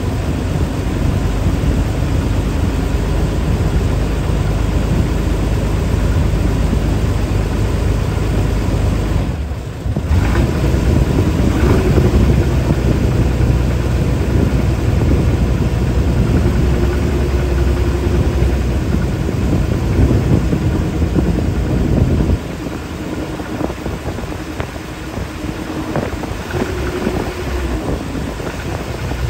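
Boat engine running steadily, heard from on board under a heavy low rumble of wind and water noise. It dips briefly about ten seconds in and runs noticeably quieter from about twenty-two seconds on.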